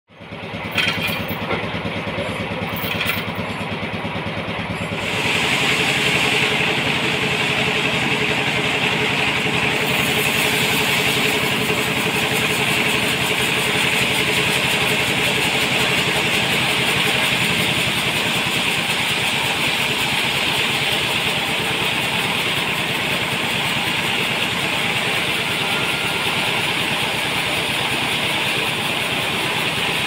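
Sawmill machinery running steadily with an engine drone, and a couple of knocks in the first few seconds. About five seconds in it gets louder and a strong high hiss joins it.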